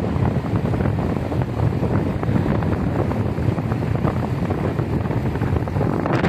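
Wind buffeting a phone microphone held out of a moving car's window, over the car's road and tyre noise: a steady low rumble.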